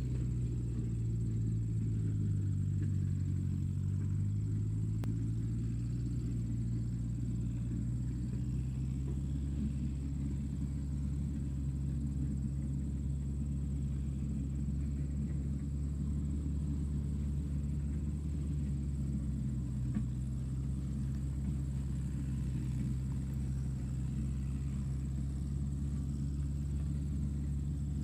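Tractor engine running steadily with a deep, even drone. Its pitch sags for a moment in the first few seconds and recovers.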